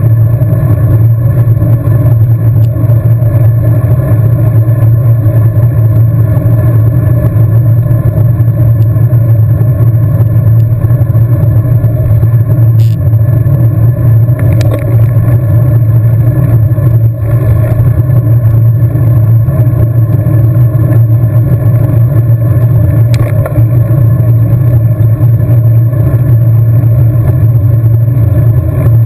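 Steady, loud wind rumble on the microphone of a camera riding on a road bike at racing speed, with a couple of brief clicks.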